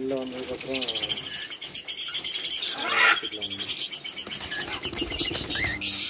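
A flock of caged cockatiels chirping and chattering in a fast, high-pitched, continuous chatter, with one sharper call about three seconds in.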